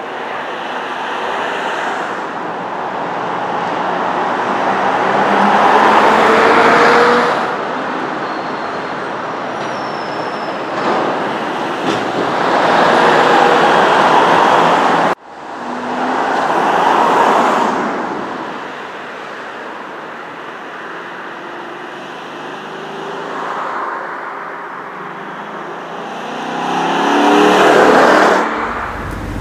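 Ford Mustang Mach 1's 5.0-litre V8 engine and exhaust as the car drives by. The note swells and fades with each pass, several times over, and drops out abruptly about halfway before picking up again.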